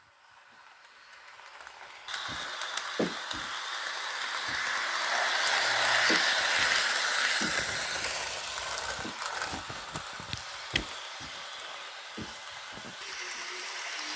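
HO scale Kato EMD GP35 model diesel locomotive and its cars running on sectional track: a whirring hiss of motor and wheels that jumps up about two seconds in, is loudest about six seconds in as the train passes close, then eases off. Scattered sharp clicks throughout.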